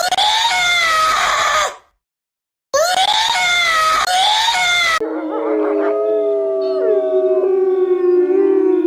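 Two long, loud animal cries with a gap of about a second between them. Then, about five seconds in, a chorus of several drawn-out howls overlapping at different pitches.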